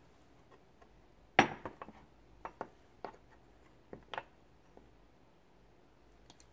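Wooden spoon stirring soy-sauce dipping sauce in a small ceramic bowl and knocking against the bowl: a sharp clink about a second and a half in, then several lighter taps over the next three seconds.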